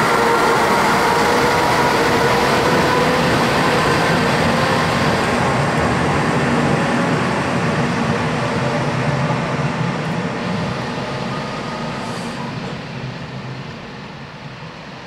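Malaxa diesel railcar pulling out and accelerating past, its engine note rising slowly, then fading steadily as the train moves away.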